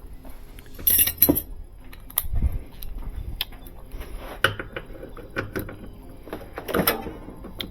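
Metal tools clinking and knocking against metal parts in irregular, separate strikes, loudest about a second in and again near the end.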